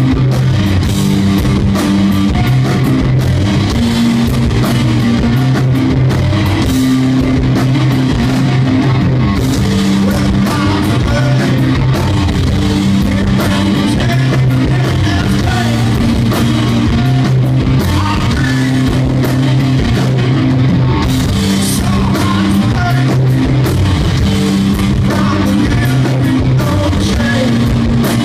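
Live heavy rock band playing loud: distorted electric guitar and bass riffing over a drum kit, with a singer's vocals.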